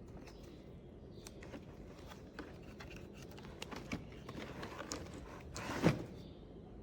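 Handling sounds of a small metal carabiner and a bag: scattered light clicks and rustles, with one louder clack near the end.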